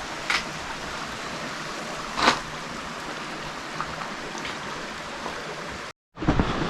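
Steady rushing noise, like flowing water, with a few sharp clicks, the loudest about two seconds in; the sound cuts out abruptly for a moment near the end.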